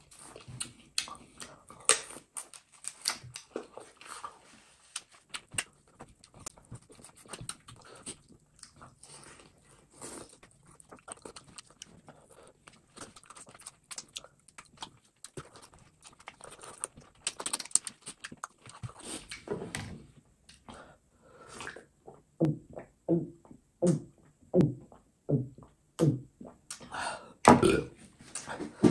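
Close-up eating sounds: wet chewing, lip smacking and sucking on duck bone, with fingers squelching through rice and curry. In the second half the chewing settles into a steady run of about two chews a second.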